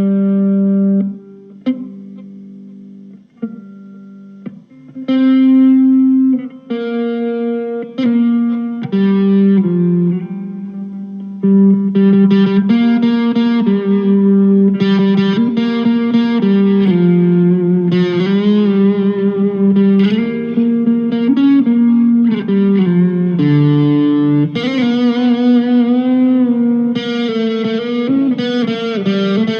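PRS 245 electric guitar played through a Blackstar ID:Core V2 modelling amp with effects: a single-note lead line of held and changing notes, with bends and vibrato. The playing is sparse and quieter in the first few seconds, then denser and louder from about twelve seconds in.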